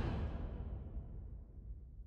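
The dying tail of a logo-animation whoosh and music sting: a low rumble fading away, with the high end gone first.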